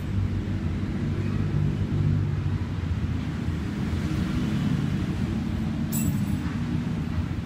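Steady low rumble of street traffic, with a brief click about six seconds in.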